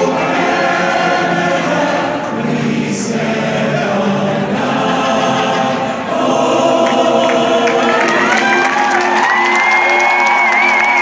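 Men's chorus singing the closing lines of the national anthem, holding long sustained notes. About eight seconds in, the stadium crowd starts cheering and clapping over the final note, with a long high whistle.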